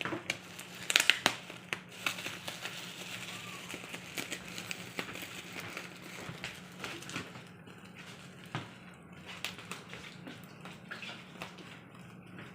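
Packaging being handled and opened: crinkling, rustling and sharp crackles, busiest about a second in and growing sparser toward the end.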